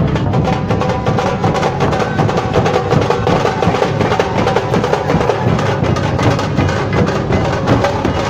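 Nashik dhol drums playing a fast, steady, driving beat with a heavy bass sound, dense strokes with no break.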